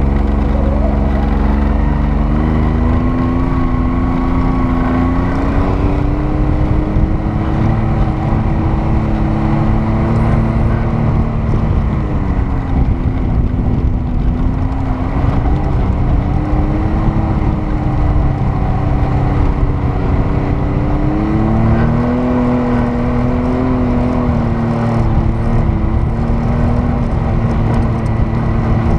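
Off-road vehicle's engine running while driving on a sandy trail, its pitch climbing in the first few seconds, dropping about twelve seconds in and climbing again a little after twenty seconds as it speeds up and eases off, over a steady rush of driving noise.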